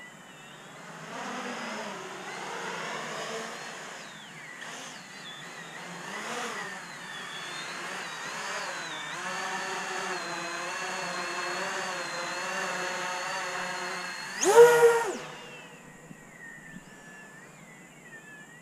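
Motors and propellers of a 12S-powered 800 mm X-Class racing quadcopter humming, the pitch shifting up and down with the throttle, then holding steady for several seconds. About fourteen and a half seconds in comes a short, loud throttle punch with the pitch jumping up, after which the sound is much fainter as the drone climbs away.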